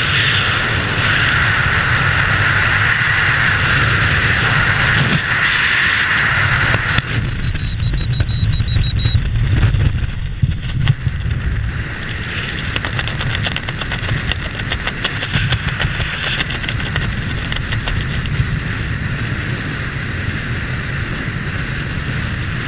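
Wind rushing over the camera microphone in skydiving freefall, a steady loud rush with a strong hiss. About seven seconds in it changes to a lower, gustier rush with rapid fabric flutter as the parachute deploys and opens.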